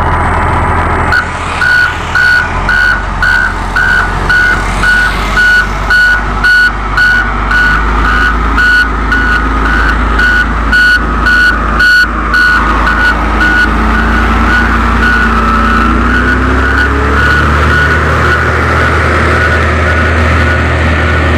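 Komatsu GD555 motor grader's reversing alarm beeping at a bit under two beeps a second over its running diesel engine. The beeps run together into a near-steady tone in the later part.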